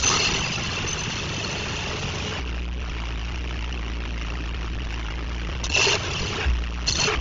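Engine idling with a steady low hum, broken by abrupt changes a few times. A harsh hiss in the first couple of seconds, then short bursts of harsh noise near the end.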